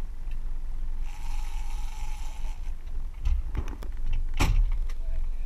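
Fishing boat underway: a steady low rumble of the boat running, with a hissing stretch about a second in and a few sharp knocks on the deck, the loudest about four seconds in.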